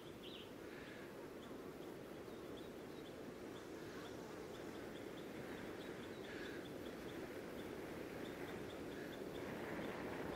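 Steady rush of river rapids, slowly growing louder, with faint, quickly repeated high chirps over it.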